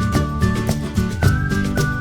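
Upbeat background music with a steady drum beat and a held, whistled-sounding melody over guitar.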